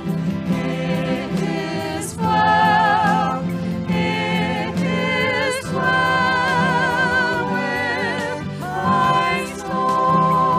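Singing with vibrato, held notes changing every second or two, over steady instrumental accompaniment: a worship song.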